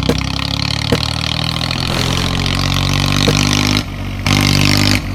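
A vehicle engine running steadily, with a short drop in level about four seconds in.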